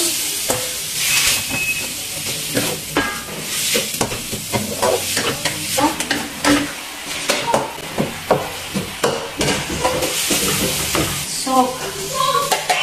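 Minced pork sizzling in a hot wok as it is stir-fried, with frequent sharp scrapes and taps of the spatula against the pan.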